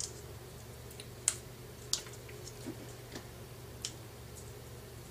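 Fingers picking at and peeling the paper backing off double-sided tape: a handful of short, sharp ticks and crackles at irregular intervals.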